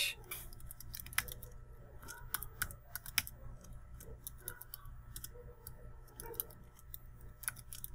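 Typing on a computer keyboard: faint, irregular key clicks as a line of code is typed.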